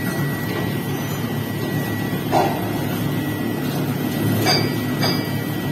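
Steady drone of foundry machinery with a thin high whine, and a few short metallic knocks as a steel moulding flask is handled and set onto a sand mould, once about halfway through and twice near the end.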